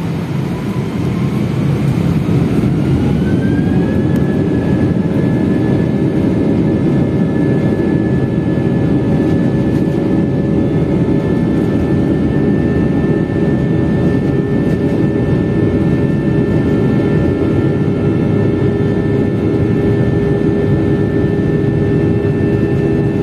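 Jet airliner engines heard from inside the cabin: a whine rises in pitch over the first four seconds, then holds steady over a loud, even rumble while the plane taxis.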